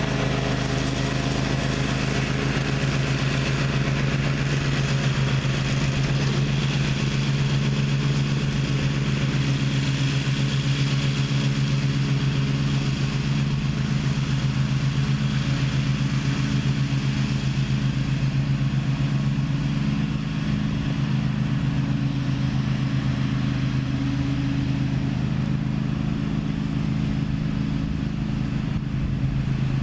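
Gravely ZTX 42 zero-turn riding mower's engine running steadily at an even speed.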